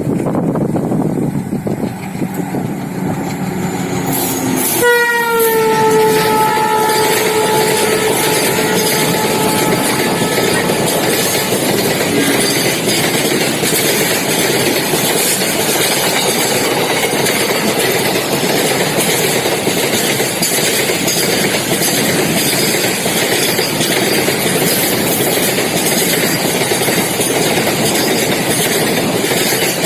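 A diesel freight locomotive comes up and sounds its horn about five seconds in. The horn is held for several seconds and its pitch drops as the locomotive passes. After that, a long train of freight wagons rolls past with a steady rumble and clatter of wheels on the rail joints.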